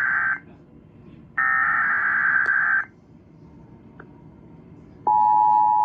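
Emergency Alert System header tones: the tail of one warbling burst of digital SAME data, a one-second pause, then a second burst of about a second and a half. About five seconds in, the steady two-tone EAS attention signal begins, marking the start of an emergency alert broadcast.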